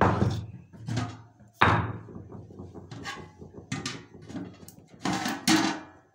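Metal clanks and knocks as a steel bowl, a ladle and a heavy stone are lifted off the aluminium lid of a large biryani pot and set down, after the rice has finished steaming on dum. There are about seven sharp knocks with short ringing; the loudest comes about one and a half seconds in and a close pair comes near the end.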